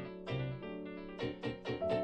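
Instrumental background music: a quick run of short, plucked-sounding or keyboard notes over a held low tone.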